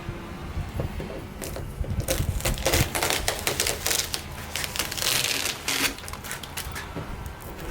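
Irregular clicking, rattling and scraping of small metal hardware being handled and worked into place by hand, busiest from about a second and a half in until near the end.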